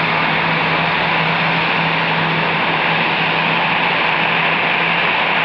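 Steady jet-engine noise of airliners on the airfield: a continuous rushing hiss with a low, even hum beneath it.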